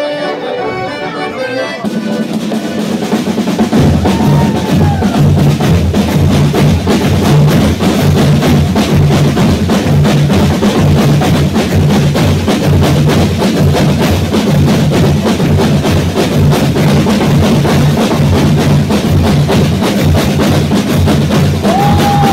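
A percussion group of snare drums and bass drums plays a fast, continuous rhythm of rolls. The snares come in about two seconds in, and the heavy bass drum strokes join about two seconds later.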